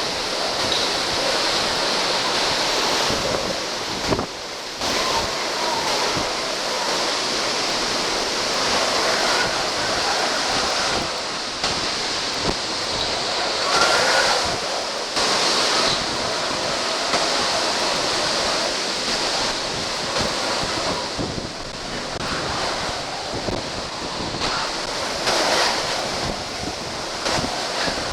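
Typhoon-force wind and driving rain, the back-side winds after the eye has passed, blowing in gusts that swell and ease and buffet the microphone.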